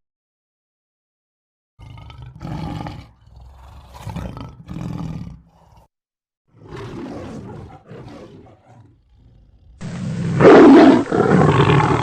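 Big cat growling in a series of rough calls about a second each. Near the end a louder, deeper roar comes in.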